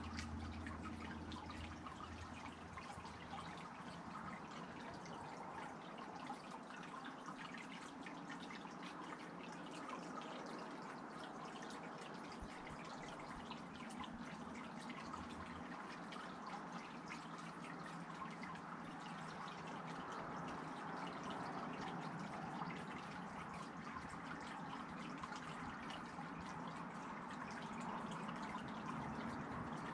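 Faint, steady dripping and trickling of water, with many small drops falling one after another.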